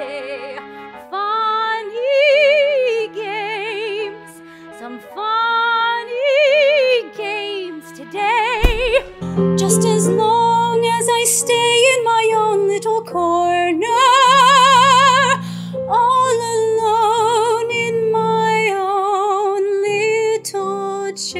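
A woman singing high held notes with wide vibrato. A little under nine seconds in, the sound cuts abruptly with a click to her singing over piano accompaniment.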